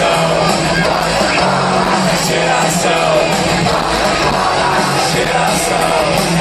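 Rock band playing live, electric guitars and bass over a steady beat, heard loud from within the audience.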